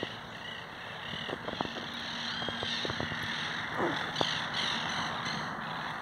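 A colony of monk parakeets (caturritas) chattering and squawking in eucalyptus trees, many short shrill calls overlapping, over a steady rushing background.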